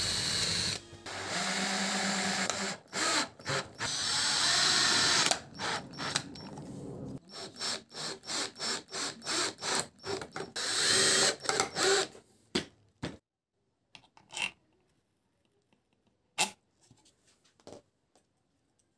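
Electric drill boring into a softwood board, running in a few steady bursts. Then a cordless drill/driver drives a screw into wood in quick short trigger pulses, about three a second, followed by one longer run. A few light clicks and knocks near the end.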